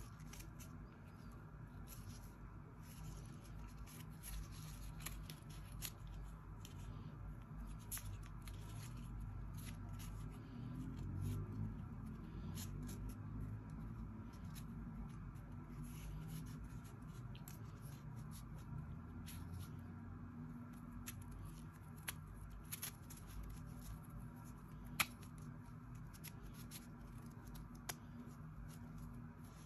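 Hands handling product packaging and small items during an unboxing: faint rubbing and rustling with scattered small clicks and taps, and one sharper click about 25 seconds in.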